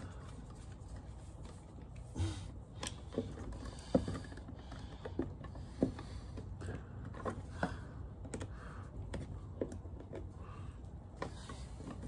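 Insulated screwdriver tightening the terminal screws of a two-way light switch, with wires being pressed in: light, irregular clicks and taps of metal and plastic, roughly one every second or less.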